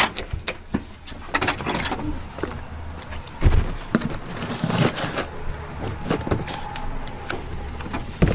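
Scattered clicks, knocks and rustles of things being handled, over a steady low hum.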